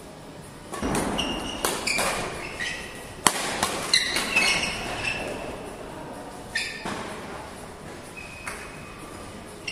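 Badminton play in an echoing hall: sharp racket hits on the shuttlecock, a quick string of them in the first five seconds and two more later, some with a short high ring after them.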